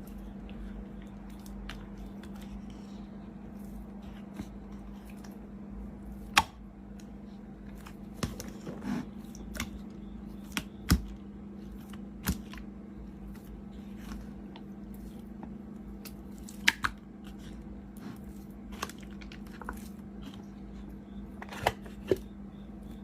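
Slime being pressed and squeezed by hand, giving scattered sharp pops and crackles, about a dozen, over a steady low hum.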